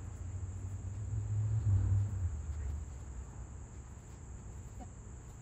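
Steady high-pitched drone of insects, under a low rumble that is loudest about two seconds in.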